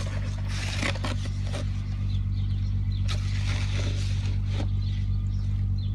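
A motor running steadily at idle, with scattered scrapes and knocks of snow shovels over it.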